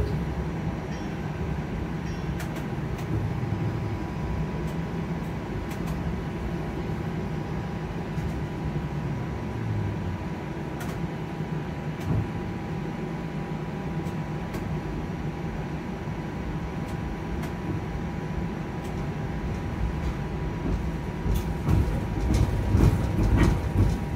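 Toronto TTC streetcar heard from inside the car as it runs along the track: a steady low rumble of wheels and running gear, with a faint steady whine and scattered light clicks and knocks. The rumble grows louder near the end.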